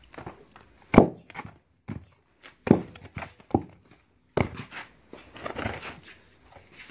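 A wooden pestle pounding boiled cocoyam into achu paste in a wooden mortar. It makes dull thuds at an uneven pace, about one or two a second, with the strongest about a second in.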